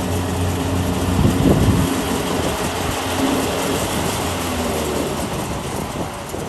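Kubota DC-70 combine harvester running, its three-cylinder turbocharged diesel engine holding a steady low tone under a broad mechanical clatter and rush, growing a little fainter toward the end.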